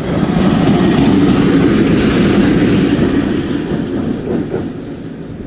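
VL10 two-section electric locomotive passing close by on the track, loudest from about one to three and a half seconds in, then fading as it moves away.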